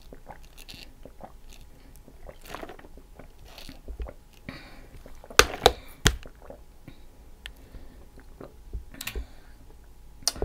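Mouth sounds of sipping through a straw from a plastic tumbler, with chewing. There are soft intermittent sips and short clicks, and a cluster of three sharp clicks a little past the middle.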